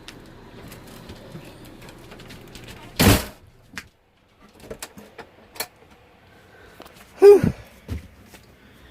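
A door shuts with a thump about three seconds in, followed by a few light clicks and knocks, and a short squeak that falls in pitch near the end.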